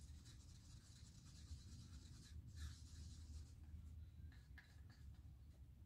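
Faint scraping of a wooden craft stick stirring acrylic paint in a small paper cup, with a few light clicks near the end.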